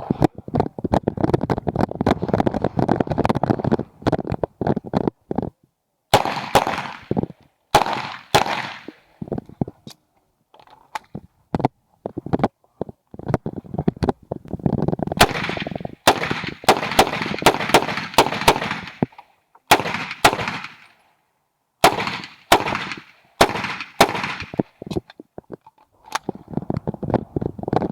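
Uzi Pro 9mm pistol fired semi-automatically in quick strings of shots, each string broken by short pauses, with the shots echoing.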